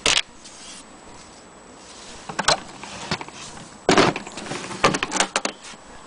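Handling noise from the hard carrying case of a Corona Standard typewriter: several short scuffs and knocks at uneven intervals as it is touched and moved. The loudest comes right at the start, with a longer cluster from about four to five and a half seconds in.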